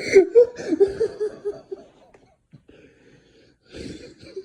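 A person laughing hard, a wheezy run of quick laughs lasting nearly two seconds, then another short burst of laughter near the end.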